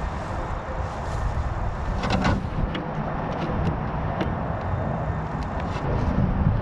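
Low rumble of wind on the microphone, with scattered small clicks and light knocks from hands working at the RC monster truck's power switch and wiring.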